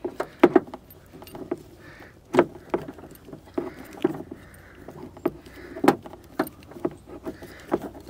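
Irregular metallic clicks and clinks of a folding bicycle key set (Park Tool) as a screw is turned by hand into a steel bracket, the loose keys rattling against each other and the metal with each turn.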